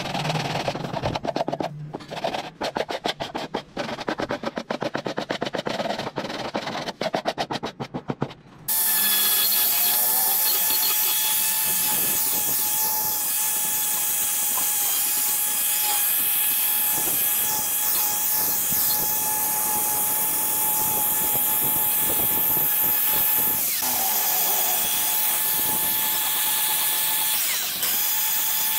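Sandpaper wrapped on a wooden block is rubbed in quick, repeated strokes along the edge of a PVC sheet. About nine seconds in, an angle grinder with a sanding disc starts and runs steadily with a high whine as it smooths the PVC edges, easing briefly twice near the end.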